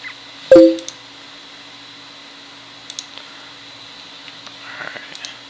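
A short two-note computer chat notification chime, the loudest sound here, about half a second in. A few faint mouse clicks follow later over a steady low hum.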